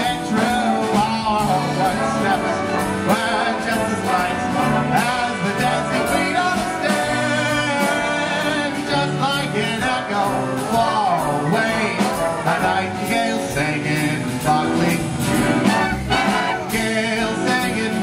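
Live big band playing a slow ballad.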